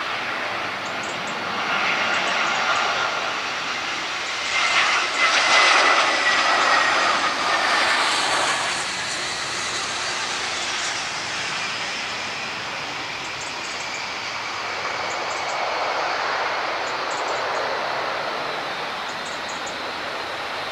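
Boeing 757 jet engines running at taxi power as the airliner turns and lines up on the runway: a steady rushing whine that swells louder about five seconds in, then settles.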